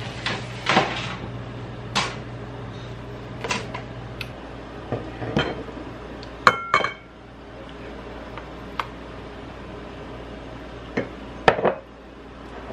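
A silicone spatula scraping and knocking against a glass measuring jug and a ceramic mixing bowl while batter is scraped from one into the other, with scattered taps and a few ringing clinks; the sharpest are about six and a half seconds in and near the end. A low hum stops about four seconds in.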